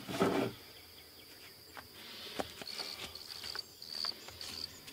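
Insects trilling steadily at a high pitch, swelling in several short bursts in the second half. A brief rustle at the start and a few light knocks and taps come from wood and tools being handled.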